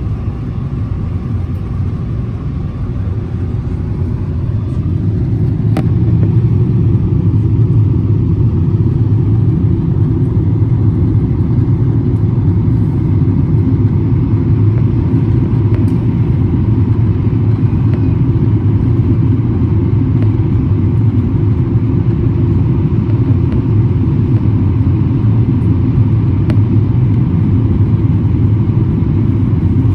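Airliner cabin noise heard from a passenger seat during the descent: a steady low rumble of the jet engines and rushing air, growing louder about five seconds in and then holding level.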